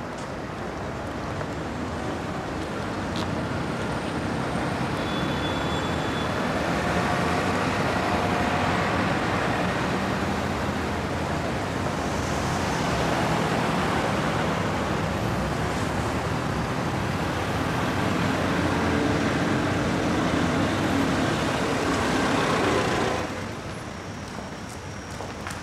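City street traffic noise: a steady wash of passing cars, which drops sharply near the end.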